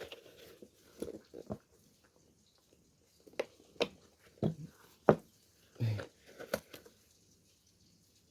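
Short, irregular creaks, snaps and clicks, about eight of them with gaps between, as a hand tool pries barbed nails out of a shoe's heel and board stiffener.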